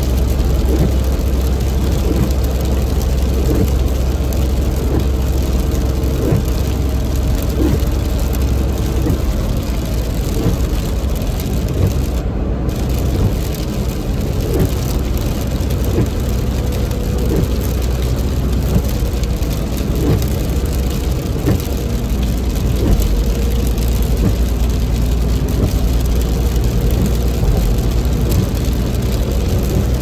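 Steady road noise inside a car's cabin at highway speed on a wet road, mostly a low rumble of tyres and engine, with rain on the car.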